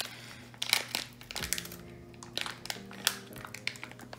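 Plastic packet of slime crinkling in irregular crackles as it is twisted and pulled at by hand to tear it open.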